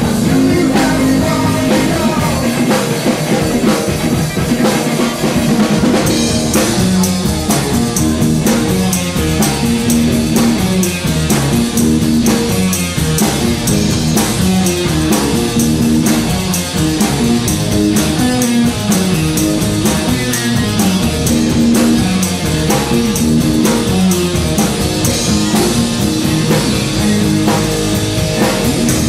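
Rock band playing live: drum kit keeping a steady beat under electric guitar and a moving bass line.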